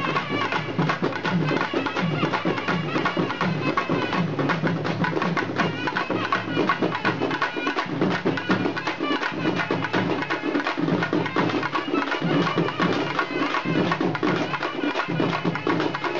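Live Tamil folk music: drums beating a steady, busy rhythm under a wavering melody line, playing without a break.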